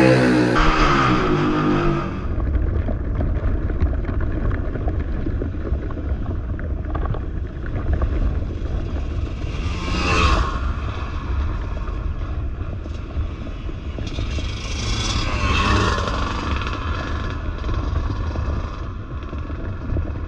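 Dirt bike riding past on a dirt trail, its sound swelling as it goes by about ten seconds in and again around fifteen seconds, over a constant low rumble of wind buffeting the microphone.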